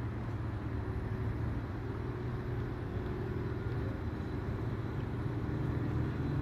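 Steady low hum of an idling engine, unchanging throughout.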